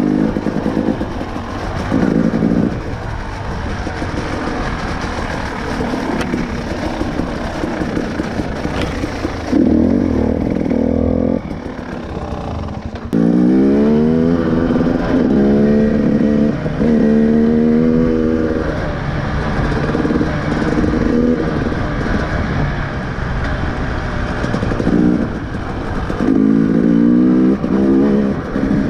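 KTM 300 TPI two-stroke enduro motorcycle heard from the rider's onboard camera, running with the throttle opening and closing. From about halfway through it accelerates hard through the gears, the pitch climbing and then dropping at each shift, and does so again near the end, over wind and stone clatter.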